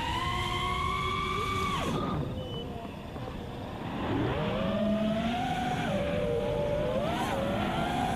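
FPV quadcopter's brushless motors (iFlight Xing-E 2207 1700KV) with folding propellers, whining as heard from the onboard camera. The pitch climbs slowly, drops sharply about two seconds in as the throttle comes off, and stays lower and quieter for a couple of seconds. It then rises again and wavers up and down with the throttle.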